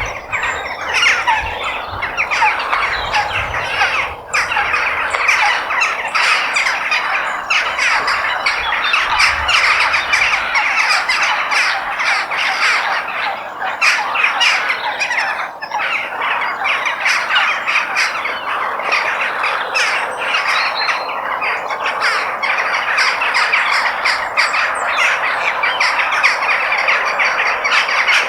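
Many crows cawing at once, a dense, unbroken din of overlapping calls. A low rumble sits under the calls for roughly the first ten seconds.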